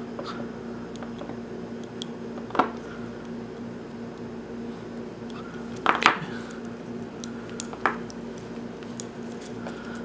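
Small clicks and rustles of hands untwisting the copper wire pairs of a Cat5e cable with a slipped-off piece of cable jacket, the loudest click about six seconds in. A steady hum runs underneath.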